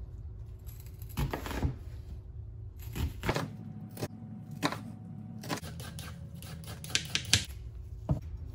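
Chef's knife cutting an onion on a plastic cutting board, then a vegetable peeler scraping a carrot: irregular sharp knocks and taps of blade on board, bunched closely near the end.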